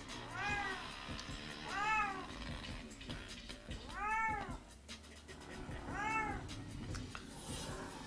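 A cat meowing four times, each a short call that rises and falls in pitch, roughly two seconds apart.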